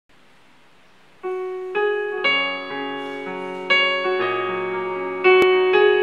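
Yamaha P-120 digital piano's piano voice playing a slow series of sustained notes and chords, which begin about a second in after a faint hiss.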